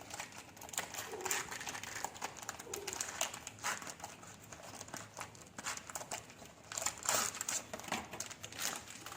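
Packaging crinkling and crackling in irregular bursts as a parcel of fairy lights is handled and opened.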